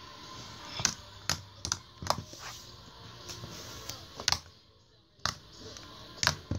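Glitter slime being poked and pressed by fingers, giving off irregular sharp clicks and pops, about seven in all, over a soft squishing.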